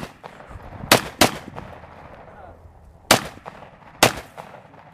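Four gunshots: two in quick succession about a second in, then two more about a second apart near the end, each trailing off briefly.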